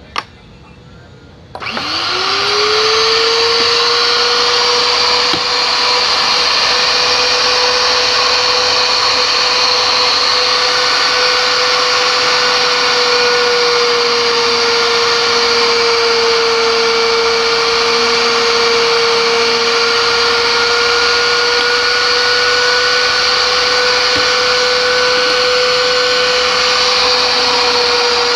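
Electric pipe-threading machine's motor switching on about one and a half seconds in, spinning up quickly in pitch and then running steadily with a high whine. A short click comes just before it starts.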